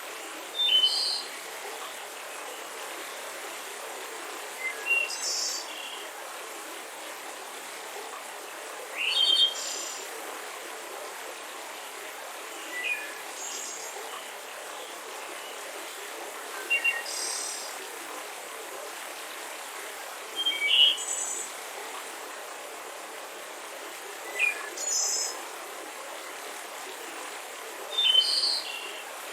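A mountain river rushing steadily while a bird sings a short chirping phrase about every four seconds, eight times in all.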